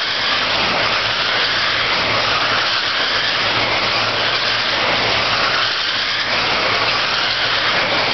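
A pack of electric radio-controlled dirt-oval race cars running laps: a steady blend of motor whine and tyres on the dirt, swelling and easing as the cars pass.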